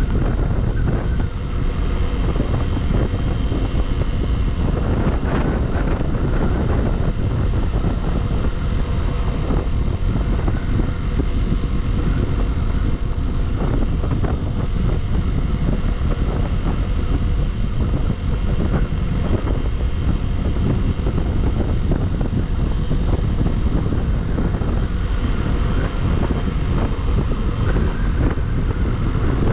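Steady, loud wind buffeting on the microphone of a motorcycle riding at speed on the highway, with engine and road noise beneath it.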